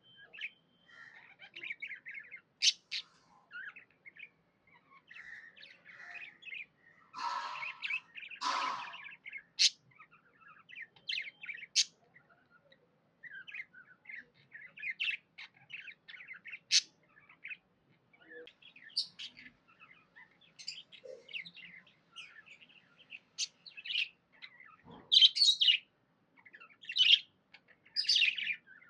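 Pet budgerigars chirping and chattering: a continuous run of short chirps, with two harsher, noisier calls about seven and eight seconds in and louder, sharper high calls near the end.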